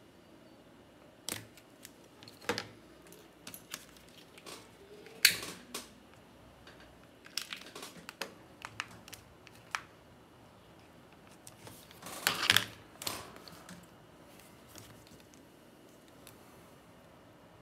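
Hands handling stitched leather wallet pieces, with scissors trimming the stitching thread: scattered short clicks and soft rustles. The loudest come about a third of the way in and again about two-thirds in.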